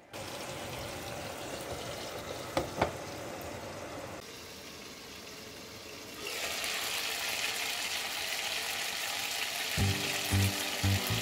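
Chicken leg quarters sizzling in hot oil in a frying pan, with two sharp clicks about two and a half seconds in. The sizzle eases for a couple of seconds, then comes back louder and steady; background music comes in near the end.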